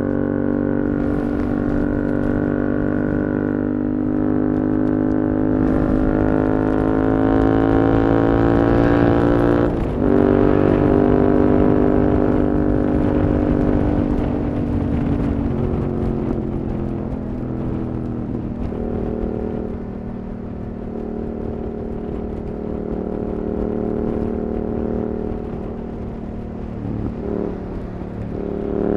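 Yamaha R7's parallel-twin engine through an Akrapovič exhaust, pulling steadily up through the revs. It changes gear about ten seconds in, then eases off to a lower, steady cruise before picking up again right at the end.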